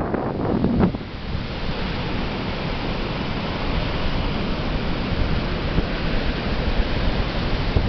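Atlantic surf washing ashore as a steady rushing hiss, with wind buffeting the microphone in the first second.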